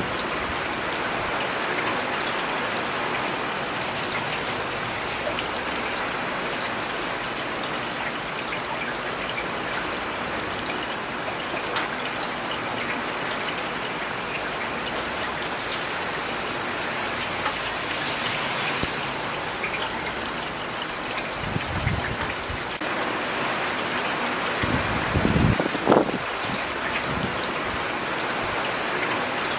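Steady rain falling on city surfaces, with scattered louder drops. Near the end come a couple of short low rumbles and a single knock.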